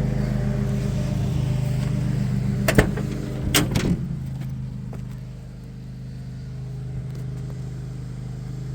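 A vehicle engine idling steadily, with a few sharp clunks about three seconds in.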